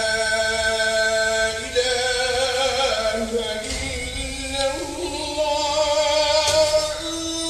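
A muezzin chanting the adhan, the Islamic call to prayer. A man's voice holds long notes, ornamented with wavering turns and slides between pitches, and settles on a steady lower note near the end.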